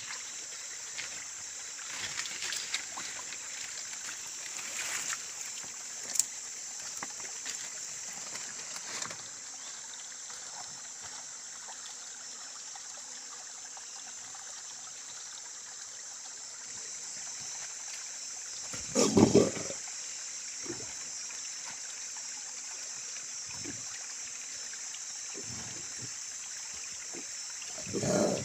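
A snared Bornean bearded pig grunts loudly in two short bursts, one about two-thirds of the way in and one at the very end. A steady high-pitched hiss runs underneath, with small rustles and snaps in the first third.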